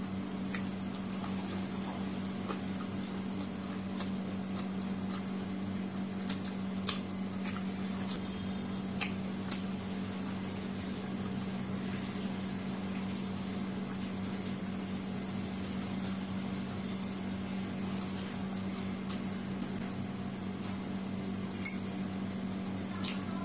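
Close-up eating sounds: sparse small clicks and smacks of chewing fried chicken lollipop eaten by hand, with one sharper click near the end. Behind them runs a steady background hum with a faint high whine.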